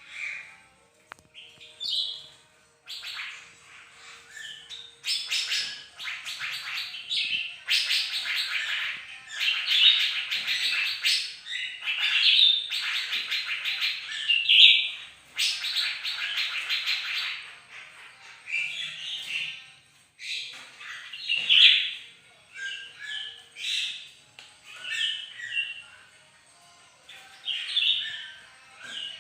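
A caged songbird in full, continuous song ('gacor'): long, fast trilling phrases a few seconds each through the first half, then shorter, varied phrases with brief pauses between them.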